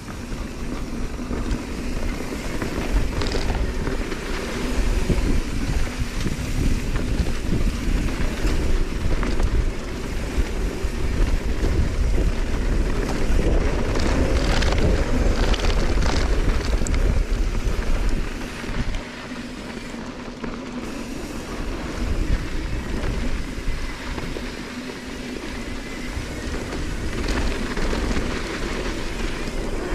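Mountain bike rolling down a dirt trail: tyre noise and wind buffeting the camera microphone, with the bike rattling over bumps. It runs louder until about two-thirds of the way through, then eases off a little.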